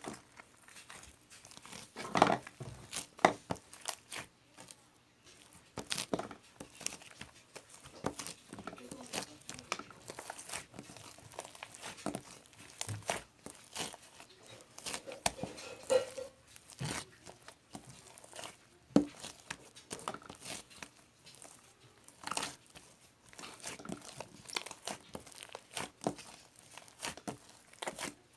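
Irregular crinkling and crackling handling noises with many sharp clicks and snaps, the loudest two about two and three seconds in.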